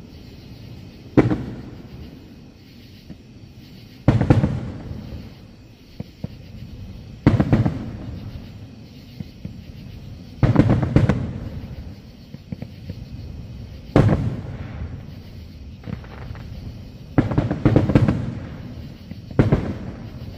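Aerial firework shells bursting: a loud boom every few seconds, some coming in quick pairs, each trailing off in a rumbling echo.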